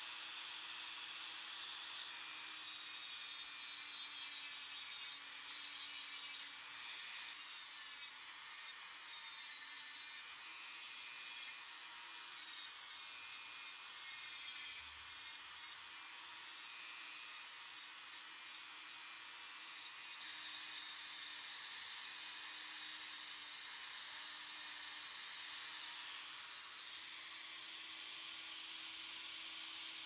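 Dremel 3000 rotary tool running with a steady high whine, its small bit grinding leadless solder wire into a bird's toe. The pitch wavers and dips now and then.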